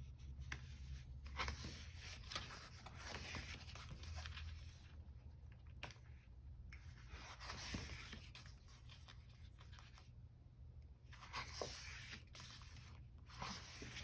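Faint rustling and scraping of paper sticker sheets being handled and leafed through, with short pauses.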